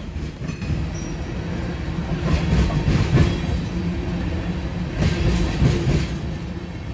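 Freight train rolling past with a steady low rumble and wheels clattering over the rail joints, loudest about halfway through and again near the end.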